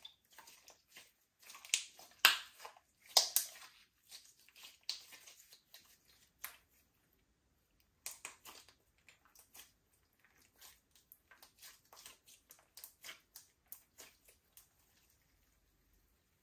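Slime being squished and kneaded by hand, giving a string of short sticky clicks and pops. The loudest come a few seconds in, and there is a pause of about a second and a half midway.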